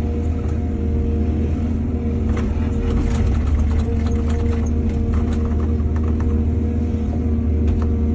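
Heavy diesel engine running steadily under load, with a scatter of sharp clicks and knocks from about two to six seconds in.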